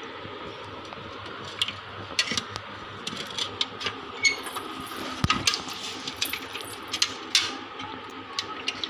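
Water splashing in a metal pot as a small child's hand grabs at live fish in it: a string of short, irregular splashes and knocks starting about a second and a half in, over a faint steady hum.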